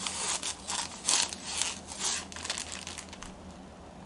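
Cloth rustling and rubbing as kimono fabrics are handled and laid against one another: a quick run of irregular scrapes that eases off after about two and a half seconds.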